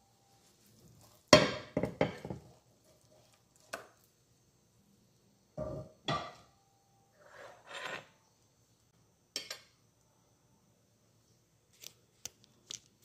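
Ceramic plate and utensils clattering. A quick run of loud knocks comes about a second in, then more knocks and scraping midway through. Near the end there are light clinks of a metal fork against the plate.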